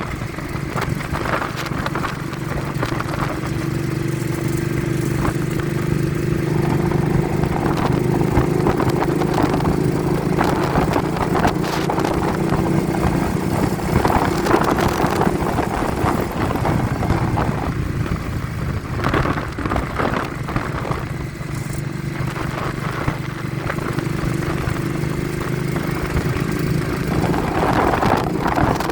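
Vehicle engine running at a steady road speed, heard under heavy wind buffeting on a phone microphone. The engine note weakens briefly about sixteen seconds in, then comes back.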